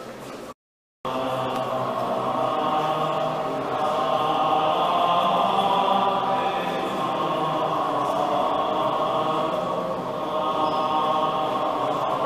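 Recorded choral music, a choir singing long held chant-like chords. There is a short silent break about half a second in, after which the singing comes back a little louder.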